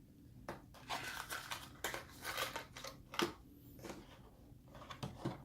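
Product packaging being handled by hand: irregular crinkling and rustling with several sharp clicks and knocks, the loudest about two and three seconds in.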